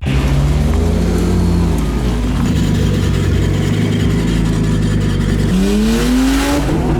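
Nissan Laurel's engine running hard under load. The note dips about two seconds in, holds steady, then climbs over the last second and a half as it revs up.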